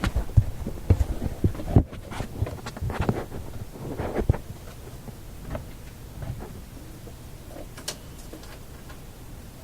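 Handling noise at a workbench: a quick run of light knocks, taps and scrapes from tools and parts being worked with, busy for the first four seconds or so, then only a few scattered clicks.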